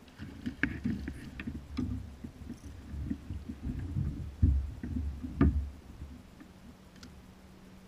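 Water splashing and irregular knocks and thumps against a kayak as a hooked redfish is fought alongside and landed, with two heavier thumps about four and a half and five and a half seconds in.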